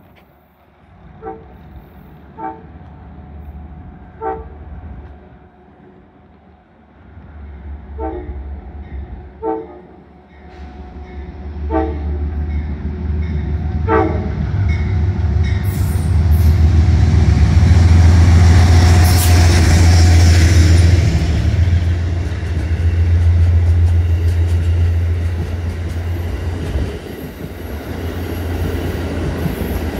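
An Amtrak diesel-hauled passenger train approaching and passing along a station platform. A string of short horn toots comes over the first fourteen seconds while a deep diesel engine rumble builds. The rumble is loudest with a rushing of wheels on rail as the locomotive goes by, about two-thirds of the way in, then the cars roll past.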